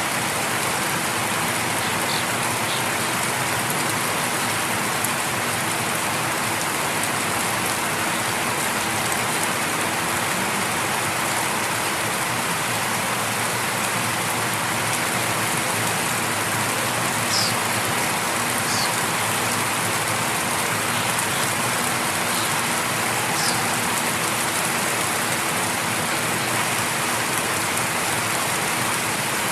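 Light rain falling steadily.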